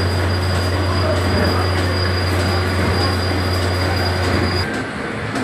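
Coconut oil expeller machines running, a steady mechanical grinding with a strong low hum and a thin high whine as the hopper stirrers feed coconut pieces into the press screws. The hum and whine drop out about four and a half seconds in while the grinding carries on.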